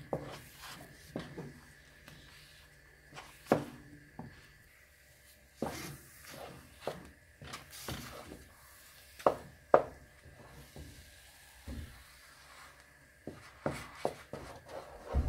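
A wooden spoon stirring thick, sticky urad flour kali in a metal pan, giving irregular knocks and scrapes against the pan every second or so.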